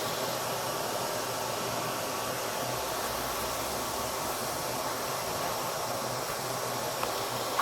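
Dyson vacuum cleaner running steadily, a constant hiss of rushing air over a faint low hum.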